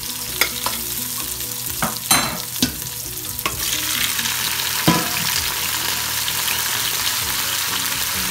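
Tomatoes and onions frying in oil in a pot, a steady sizzle. A utensil stirring them knocks and scrapes against the pot several times in the first five seconds, the loudest knock about five seconds in.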